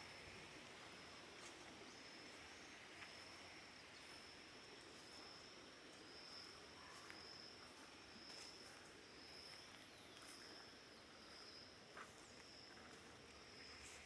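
Faint, high-pitched insect trilling: a steady run of short, evenly repeated pulses, with a few faint clicks scattered through.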